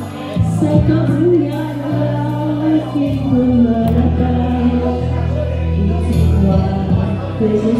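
Karaoke backing music playing through a PA, with a voice singing over sustained bass notes.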